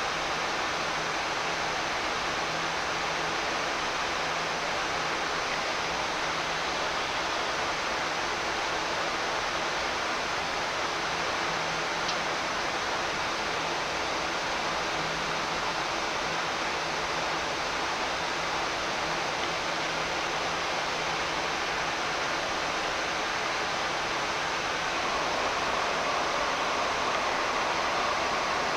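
Steady rushing hiss of an airliner flight deck with a faint steady low hum underneath, from the air conditioning and the idling aircraft; it grows a little louder near the end.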